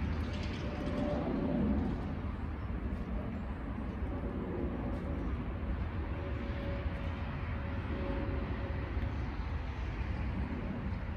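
Outdoor background: a steady low rumble with a faint hum that comes and goes.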